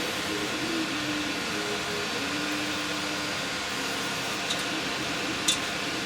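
Steady background hiss like a running fan, with two short light clicks about a second apart near the end.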